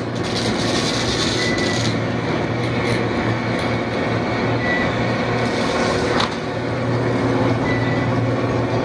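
Shrimp trawler's engine and net-hauling machinery running steadily, a constant low hum, as the loaded trawl bag is lifted aboard. Brief high squeaks come about every three seconds.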